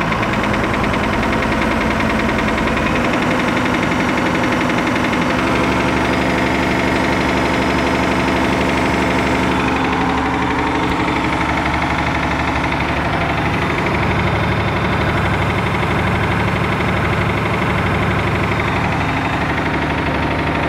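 Perkins T6.354 M six-cylinder turbocharged marine diesel engine running steadily with a knock in it. Its low note shifts a little a few seconds in.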